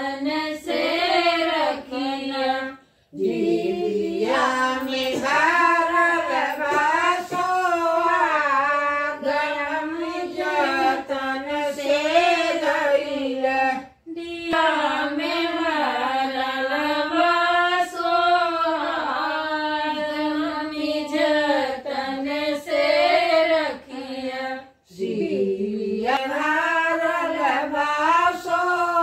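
Women singing a North Indian wedding folk song (shaadi ke geet) in a steady sung melody, with short breaks between lines about three, fourteen and twenty-five seconds in.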